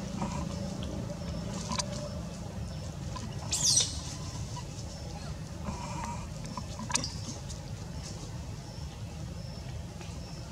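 A monkey gives one brief, high-pitched squeal about a third of the way in. It sounds over a steady low rumble, with faint short chirps repeating about once a second.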